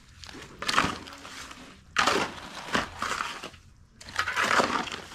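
Stones and gravel crunching and scraping in about four short gritty bursts, the loudest near the start and about two seconds in.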